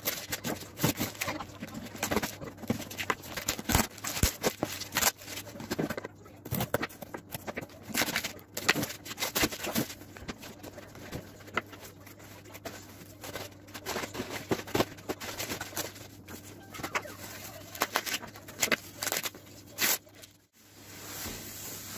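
Unboxing noises: a box cutter slicing packing tape and cardboard, and cardboard scraping and rustling as the box is opened. Toward the end comes the crinkling of bubble wrap as a wrapped item is handled. The noise is a dense run of short, irregular clicks and rustles.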